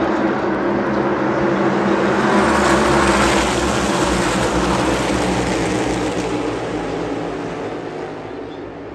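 A pack of NASCAR Cup Series stock cars with V8 engines racing past at full speed. The noise is loudest about three seconds in, then fades away as the field moves off.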